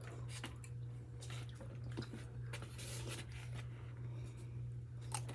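Close-miked eating sounds: wet chewing and squishing with scattered small clicks, over a steady low hum.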